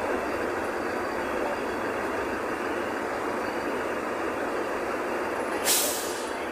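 Steady running noise inside a city bus in motion, with a short sharp hiss of the air brakes about six seconds in as the bus slows behind another bus.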